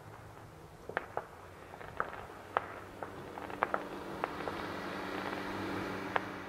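Scattered sharp clicks and taps, about ten of them at uneven intervals, over background noise; from about three seconds in, a steady low hum and a hiss build up.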